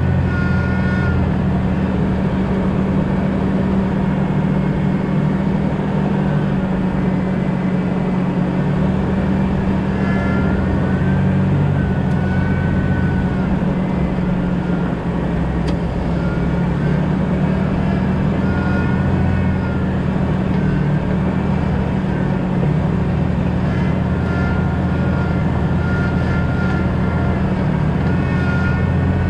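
2000 Jeep Cherokee XJ driving, heard from on board: a steady low drone of engine and road noise, with faint wavering higher tones coming and going over it.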